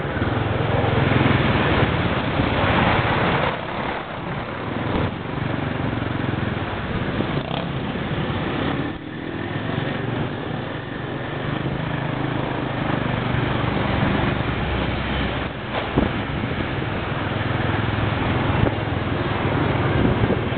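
Motorcycle taxi's engine running steadily while riding through city traffic, heard from the passenger seat, with the noise of the traffic around it.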